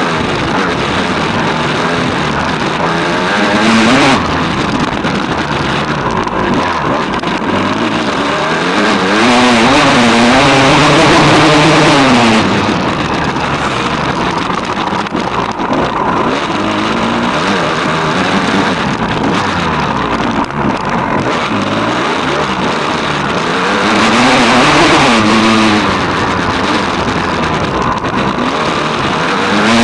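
Engine of a small off-road vehicle under way, its pitch rising and falling again and again as the throttle opens and closes, with wind rushing over the handlebar-mounted microphone. The noise gets louder twice, at about 9 to 12 seconds and at about 24 to 26 seconds in.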